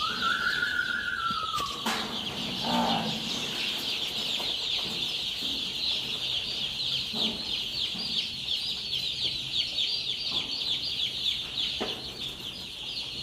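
A flock of young chicks peeping continuously, many rapid high-pitched chirps overlapping into a steady chorus.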